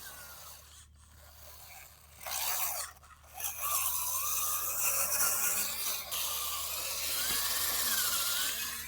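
Radio-controlled toy machine at work: a small electric motor whining and wavering up and down in pitch, with scraping of soil. It starts about two seconds in, stops briefly near three seconds, then runs on.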